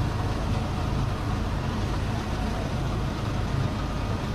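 Road roller's engine running steadily with a low hum.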